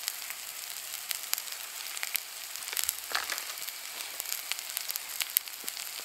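Diced potatoes, sausage meat and onions frying in oil in a cast iron skillet: a steady sizzle with frequent small pops.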